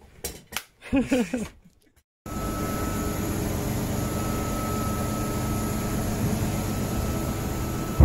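Brief voices, then about two seconds in an abrupt change to the steady noise of a research ship's deck machinery running, an even mechanical hum with a faint high whine that comes and goes.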